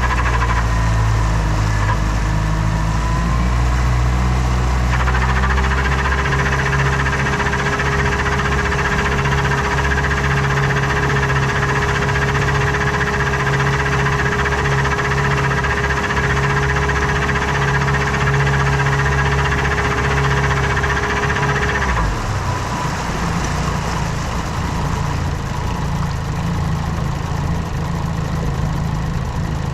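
New outboard motor running during break-in, a steady engine drone with a held tone over it; about 22 seconds in the tone drops out and the running note changes. This is the abnormal noise the owner is troubled by.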